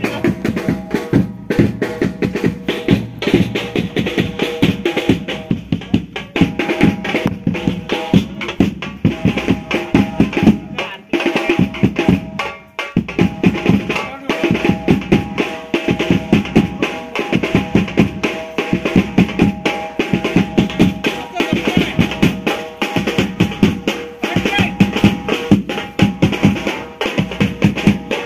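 Drum-driven festival music: fast, continuous drum strokes with steady held notes of a melody instrument over them, thinning out briefly about halfway through.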